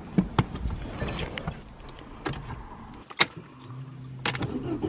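Clicks, knocks and rustles of someone settling into a car's driver's seat and handling the car key at the ignition, with a short steady hum about three-quarters in.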